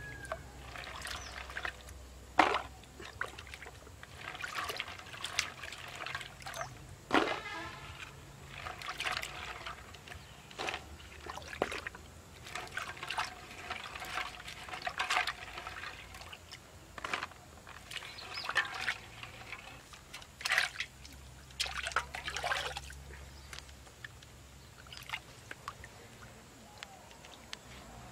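Water sloshing and splashing as hands rub and rinse small food pieces in a metal pot of water, with scattered sharp knocks as pieces are dropped into a plastic bowl.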